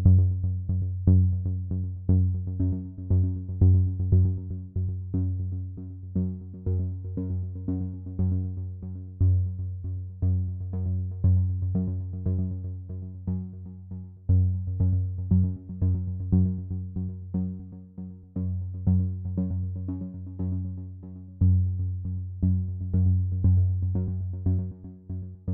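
Electronic synthesizer music with a steady rhythm of repeated low notes.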